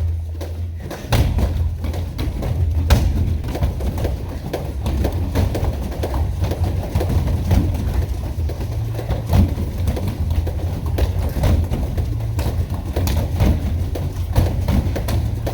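Repeated thuds and scuffs of people grappling and drilling on training mats, irregular and scattered, over a steady low rumble.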